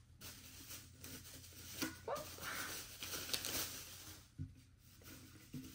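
Plastic wrapping crinkling and tearing as a clear laundry-detergent dispenser jar is unwrapped, with a few brief knocks from handling the jar.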